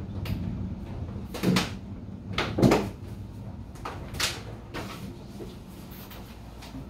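A handful of sharp knocks and clacks, the loudest about two and a half seconds in, over a low rumble of distant thunder that fades away.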